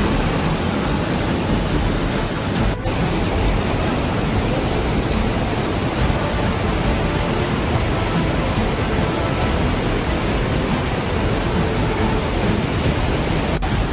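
Heavy rain pouring down in a dense, steady hiss, broken briefly about three seconds in and again near the end.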